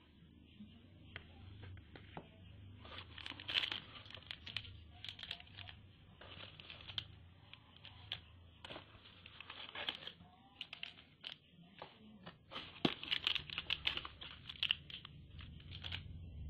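Plastic wrappers on sticks of modelling dough crinkling as they are handled and laid on plastic toy plates, mixed with light clicks and taps of plastic toy pieces. The crinkling comes in two busier spells, a few seconds in and again about twelve seconds in.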